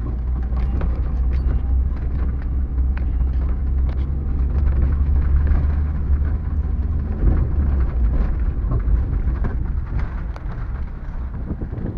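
Van driving over a rough dirt road: a steady low engine and road rumble, with scattered knocks and rattles as the body jolts over ruts.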